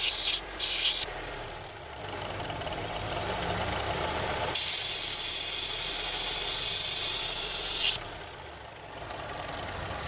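2002 Honda CR-V 2.4-litre engine idling with the purge-valve vacuum port open. Air being sucked into the port gives a loud hiss in brief bursts at the start and steadily for about three and a half seconds in the middle, and the hiss stops when the port is blocked. With the port blocked the engine idles rough.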